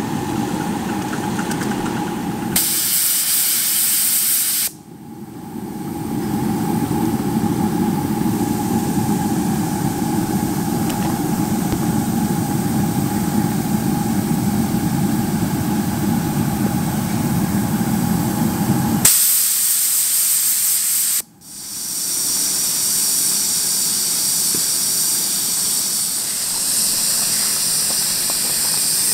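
Live-steam miniature locomotives hissing steam steadily, with a hum underneath. Twice, a few seconds in and about two-thirds through, a louder, sharper burst of steam rises over it for about two seconds and then cuts off sharply.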